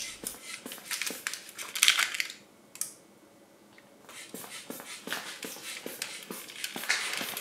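Irregular light clicks and crinkling from a thin blown-caramel bubble as it is pumped up on a sugar pump and touched with a gloved hand. The sounds are thickest at the start and again in the second half, with a quieter stretch in the middle.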